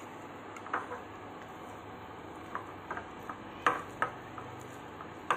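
Hand tossing cut idli cubes in a glass bowl to coat them in maida flour: scattered light clicks and taps of fingers and pieces against the glass over a faint steady hiss.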